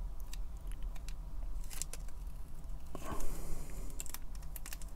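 Masking tape being peeled off a small plastic model and crumpled between the fingers: scattered small crackles and clicks, with a longer peeling rasp about three seconds in, over a steady low hum.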